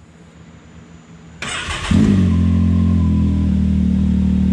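Can-Am Maverick X3's turbocharged three-cylinder engine started with the push button: about a second and a half in the starter cranks briefly, the engine catches half a second later and settles into a steady idle around 1,500 rpm.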